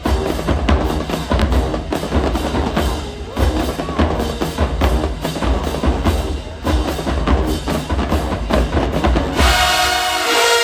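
Marching band drumline playing a loud cadence, with bass drums and snares driving a steady rhythm. Near the end the drums give way to a held, pitched chord.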